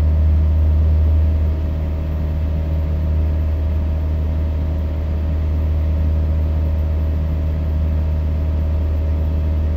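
Steady, loud drone of an Aquila A210 light aircraft's Rotax 912 four-cylinder engine and propeller at climb power after takeoff, heard inside the cockpit: a deep constant hum with a steady tone above it.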